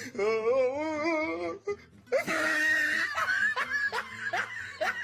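A person laughing hard: a long, wavering high laugh, then a breathy burst and a run of short gasping laughs, about two or three a second.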